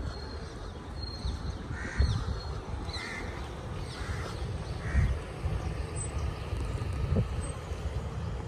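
Crows cawing, short calls about once a second, over a steady low outdoor rumble with a couple of dull thumps.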